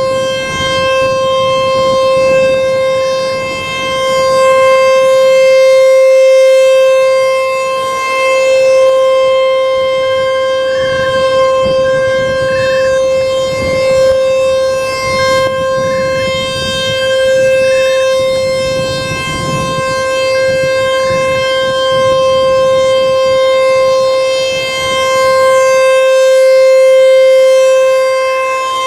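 American Signal T-128 outdoor warning siren sounding a steady tone at one fixed pitch, its loudness swelling and fading every few seconds.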